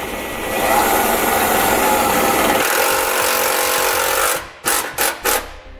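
Cordless drill driving a self-tapping screw into a pickup truck's steel frame through a 3/8 in. nut driver: a steady whir for about four seconds, then three short bursts near the end as the screw is snugged down.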